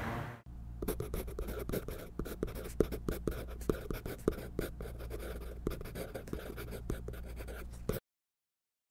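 A pen writing on a sheet of paper: quick scratching strokes and small taps over a faint low hum, stopping abruptly near the end.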